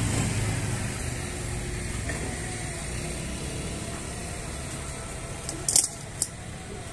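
Steady low hum of road traffic that slowly fades, then two sharp knocks a little under a second apart near the end: a stone pestle striking the stone mortar of peanut sauce.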